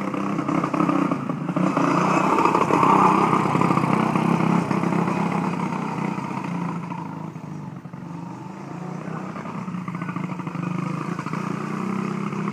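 Honda Odyssey buggy with a Zongshen engine running as it drives across the grass. It is loudest in the first few seconds, fades around eight seconds in, then runs steadily farther off.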